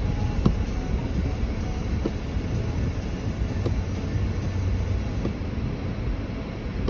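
Car driving slowly in a snowstorm, heard from inside the cabin: a steady low rumble of engine and tyres, with a few faint clicks.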